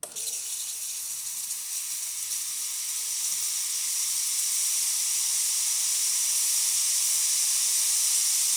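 Breville Oracle Touch espresso machine's steam wand blowing steam, a steady loud hiss that starts abruptly and grows slightly louder over the first few seconds.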